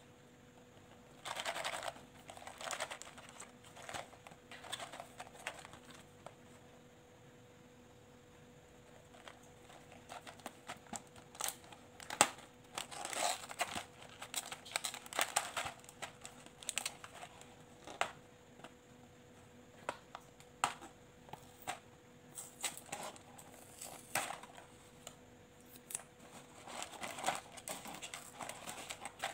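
Cardboard box of a bead jewelry kit, with a plastic window, being handled and its flap opened: irregular crinkling and rustling of the packaging with small sharp clicks, over a faint steady hum.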